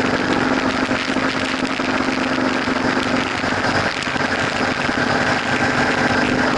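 Motorcycle engine running at a steady note at freeway cruising speed, under a constant rush of wind noise.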